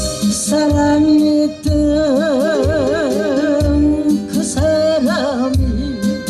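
A song played loud over a PA system: a backing track with a steady beat under a lead melody held on long notes with wide vibrato.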